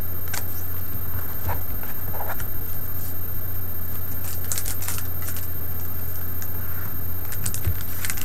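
Light clicks and rustles of Pokémon trading cards being handled, coming in short clusters about halfway through and again near the end, over a steady low hum.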